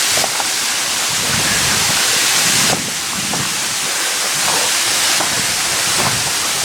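Waterfall rushing close by: a steady, loud hiss of falling water, dipping slightly in level about three seconds in.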